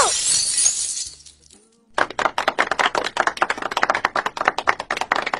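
A crash that fades away over about a second, then, after a short pause, a fast clatter of many small sharp clicks and cracks that stops suddenly near the end.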